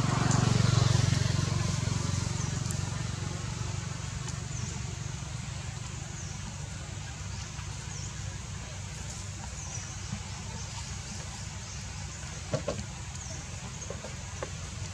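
Low motor rumble that swells over the first two seconds and slowly fades, with a short falling high chirp repeating every second or two and a couple of clicks near the end.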